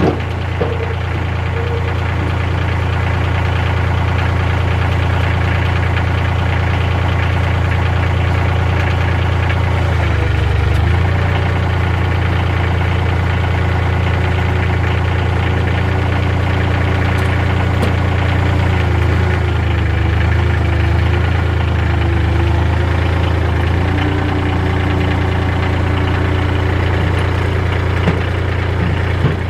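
Compact tractor engine idling steadily, its note shifting briefly about ten seconds in and again for a few seconds past the middle.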